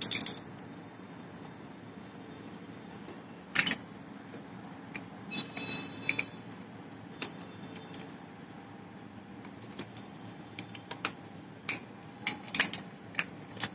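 Irregular metal clicks and clinks of a screwdriver and pliers working on a tractor starter motor's solenoid, loosening its terminal nut to take it off; a short metallic ring about five and a half seconds in.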